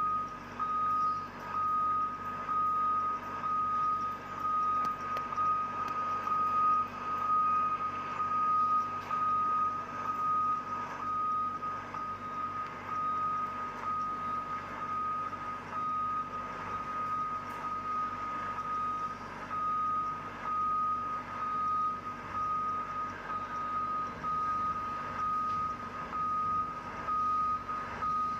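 A heavy vehicle's reversing alarm beeping, one steady high tone repeated at an even pace, over uneven background noise.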